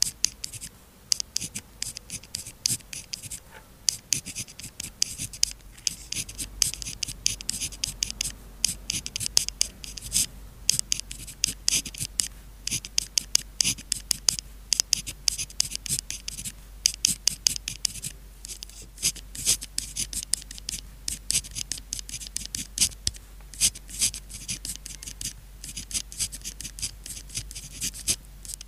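Pen writing on paper: a quick run of short scratchy strokes, several a second, broken by brief pauses.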